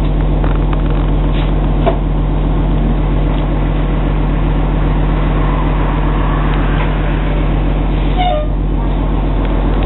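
Steady low hum of an Orion VII NG hybrid bus running while stopped, heard from inside. A few short high squeaks come about eight seconds in.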